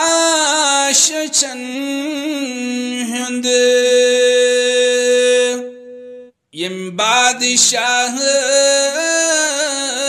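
Male voice singing a Kashmiri naat in a melismatic devotional style, with a long held note in the middle, a short breath pause about six seconds in, then the next line begins.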